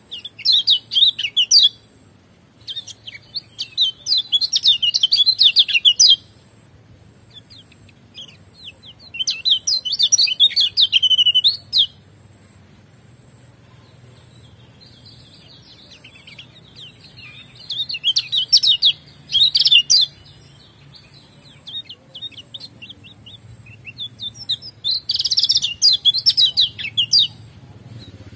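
Kecial kuning white-eye singing a rapid, high twittering song in repeated bursts of a few seconds, about five bursts with short pauses between.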